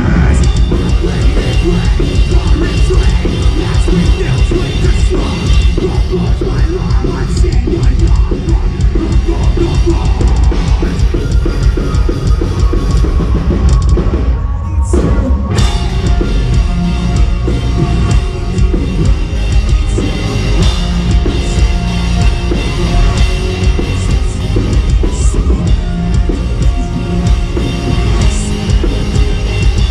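Heavy metal band playing live at full volume, with a drum kit prominent. The music thins for a moment about halfway through, then carries on.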